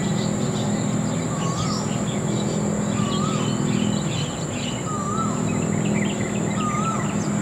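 Birds and insects: a steady high-pitched insect drone, one bird repeating a short wavering whistle four times, about every one and a half to two seconds, and other birds chirping briefly, over a low steady hum.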